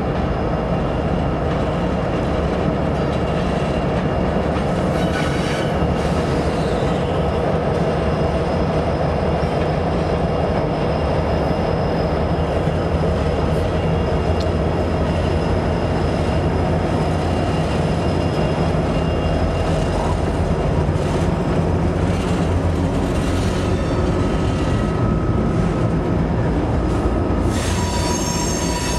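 A train rolling past with a steady, loud rumble of wheels on rail. A high-pitched wheel squeal sets in near the end.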